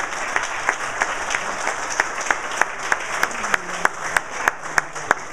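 A roomful of people applauding, with one clapper close by standing out in sharp, even claps about three a second.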